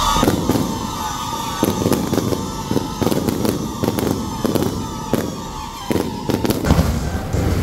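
Electronically fired fireworks launching in a display: a rapid, irregular string of sharp bangs and pops over a steady rushing noise.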